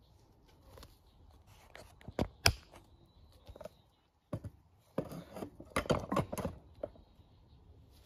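Handling noise on a workbench: two sharp clacks about two seconds in, then a short run of clattering knocks a few seconds later, as objects or the camera are moved about. The starter motor is not running.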